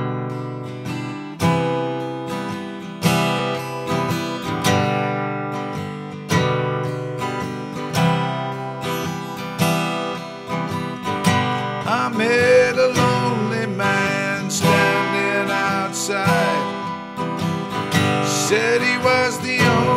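Acoustic guitar intro: chords strummed and left to ring, a new one about every second and a half. A second, wavering melody line joins over the guitar about halfway through.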